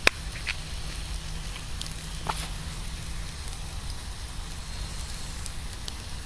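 Wood campfire crackling, with scattered sharp pops over a steady low hiss; the sharpest pop comes right at the start.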